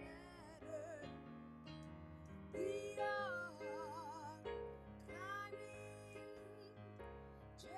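A woman singing a slow gospel melody, accompanying herself on a keyboard with sustained piano chords. Her held notes waver with vibrato, most clearly about halfway through.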